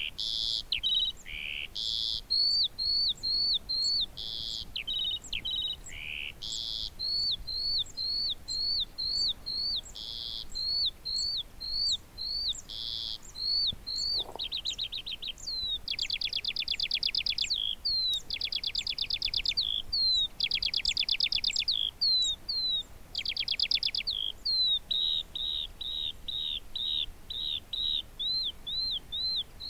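Eurasian skylark singing: an unbroken stream of quick, high chirps, with several fast trills in the middle stretch.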